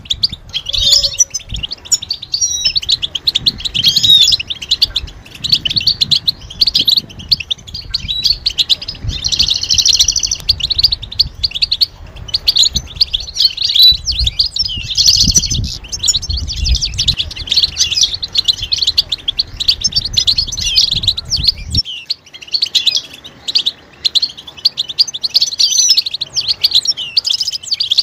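Several European goldfinches chattering together, a dense unbroken run of quick high chirps and twitters. A low rumble underneath cuts off suddenly about three-quarters of the way through, while the chattering carries on.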